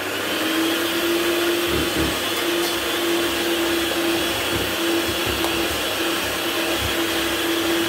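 Electric hand mixer running at a steady speed, its beaters creaming butter and icing sugar in a bowl: a steady motor whine with a fixed pitch, broken by irregular low thumps.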